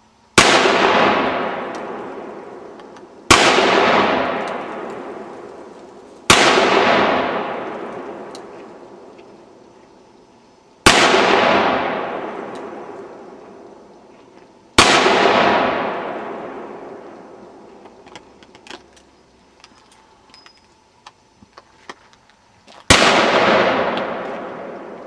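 Six handgun shots at uneven intervals of a few seconds, each a sharp crack followed by a long echo that fades over two to three seconds.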